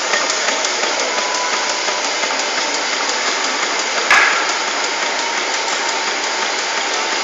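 Match splint chopping machine running, a steady mechanical clatter with fast, even clicks. One louder knock with a short ring comes about four seconds in.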